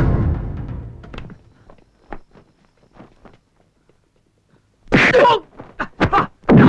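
The tail of the film score dies away, leaving a few faint taps. About five seconds in, a sudden loud vocal burst, a yell or cry, is followed by several more short sharp bursts.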